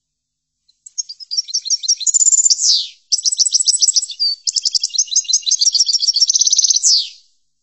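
European goldfinch singing: two fast twittering song phrases of chirps, trills and quick sliding notes. The first lasts about two seconds and the second about four, with a brief break between them.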